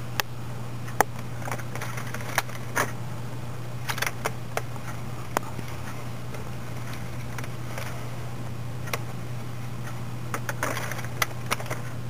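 Scattered light plastic clicks, irregularly spaced, as a plastic yarn needle is worked against the plastic needles of a circular knitting machine to scoop the yarn out of each loop while casting off. A steady low hum runs underneath.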